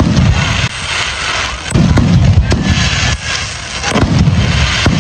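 Fireworks display: aerial shells bursting in three deep booms about two seconds apart, each dying away, over steady crackling from the bursting stars.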